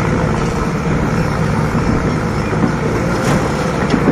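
Mahindra Novo 57 hp tractor's diesel engine running loud and steady under load, straining to pull a fully loaded soil trolley that is stuck.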